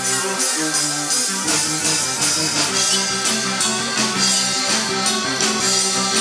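Live folk-rock band playing, with accordion and fiddle over a steady beat. A deeper bass part comes in about a second and a half in and fills out the sound.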